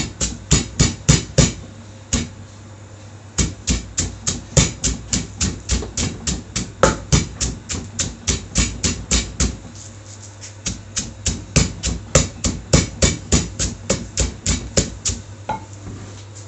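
Wooden pestle pounding in a mortar, as when making som tam, with quick, even knocks about four a second. The pounding comes in runs that stop twice for a second or two.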